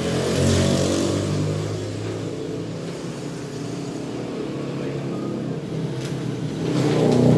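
A motor vehicle engine running, swelling louder about half a second in and again near the end.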